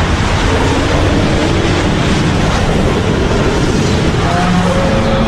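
Wind of tornadoes: a loud, steady rushing noise with no let-up. A few faint held tones come in near the end.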